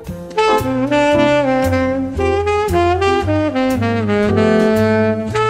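Lively background music: a quick, jazzy melody on a wind instrument over a bouncing bass line and a steady beat.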